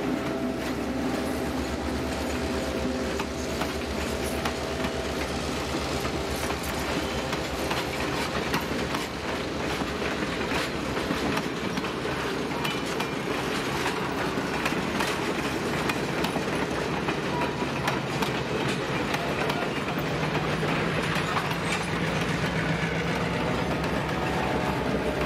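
Passenger train coaches rolling past at speed, their wheels clicking over the rail joints in a steady clickety-clack. Near the end a steady diesel locomotive engine hum joins in.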